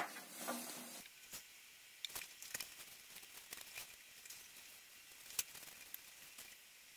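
Faint, irregular ticking and light crackling of hydrogen bubbles as a chunk of sodium metal reacts slowly with anhydrous ethanol.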